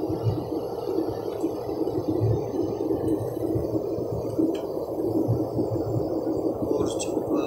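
Steady, muffled airliner cabin noise: the engines and airflow heard from inside the passenger cabin, with soft low thuds throughout.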